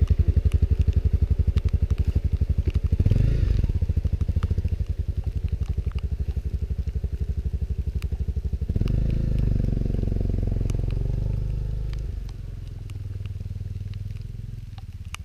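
Honda CRF250L's single-cylinder four-stroke engine running at low revs with an even, rapid pulse as the bike is ridden slowly. About two-thirds of the way through it smooths into a steadier sound, then fades as the bike moves away.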